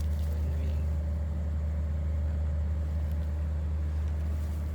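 Steady low rumble with a faint, even hum above it.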